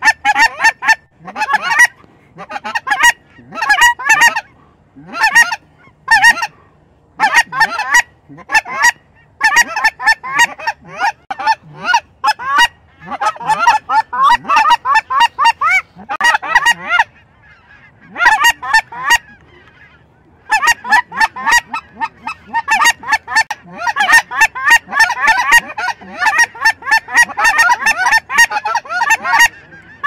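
A flock of snow geese calling, many high honking yelps overlapping in loud bursts with short pauses, and a lull of about three seconds past the middle.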